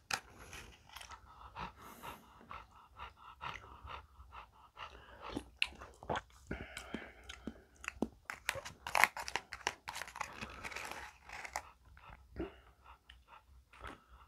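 A plastic spoon clicking, tapping and scraping against plastic takeout containers in a string of irregular small clicks, as seasoning is scooped from a small tray into a tub of soup and stirred in.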